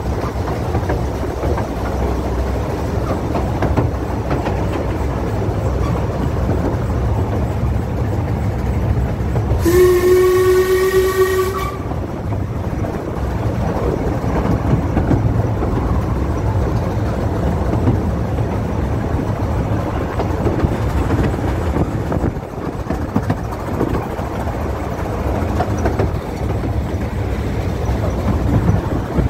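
Narrow-gauge Ffestiniog Railway train running with a steady rumble. About a third of the way in it sounds one whistle, several pitches at once, lasting about two seconds.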